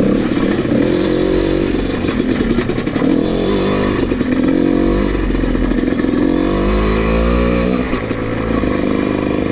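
Dirt bike engine running under way, its revs rising and falling as the rider works the throttle over rough ground, with a long climb in revs about two-thirds of the way through before it drops back.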